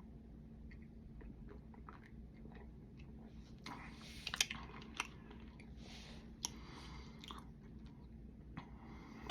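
Faint mouth sounds of someone drinking and tasting a soda: scattered small clicks, then a run of louder sips, swallows and lip smacks about four to seven seconds in.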